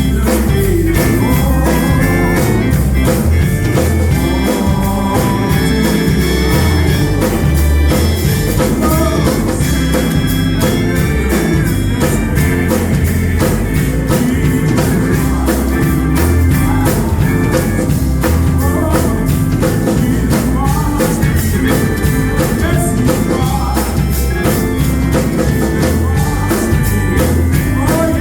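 Gospel music with organ, a steady drum beat and singing voices.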